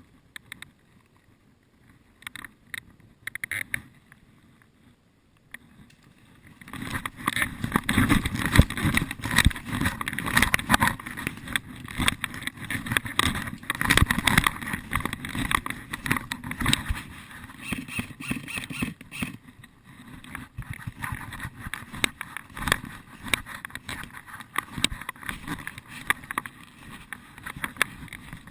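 Rustling and crackling of footsteps and movement through dry leaves and forest undergrowth, starting about six seconds in after a quiet stretch with a few faint clicks, and running on as a dense, irregular crunching.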